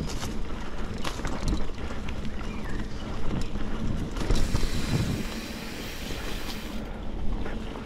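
Mountain bike riding over a dirt singletrack: wind rumble on the microphone with tyre noise and frequent knocks and rattles from the bike over bumps, and a spell of higher hiss in the middle.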